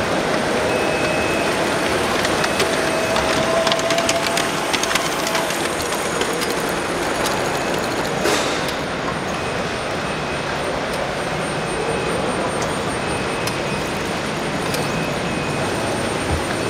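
A 5-inch gauge model freight train rolling past on its steel track, its wheels clicking over the rail joints, with a burst of clicks about two to five seconds in, over the steady noise of a busy hall.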